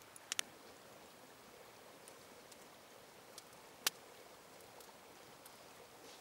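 Campfire crackling faintly: a few sharp pops over a low steady hiss, two close together near the start and the loudest a little before four seconds in.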